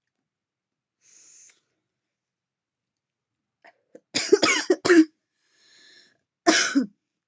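A woman coughing after inhaling from a vape: a faint hiss about a second in, then a burst of three or four coughs about four seconds in, a brief hiss, and one more cough near the end.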